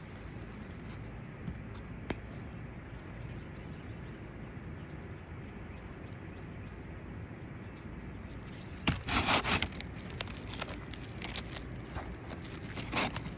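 Steady background noise with a burst of scraping strokes about nine seconds in and another short scrape near the end.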